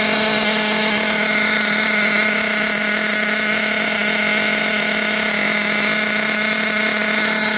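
Team Orion CRF .21 7-port two-stroke nitro engine running steadily on its first break-in fire, a high buzzing note that holds one pitch throughout; it is running well at a good head temperature.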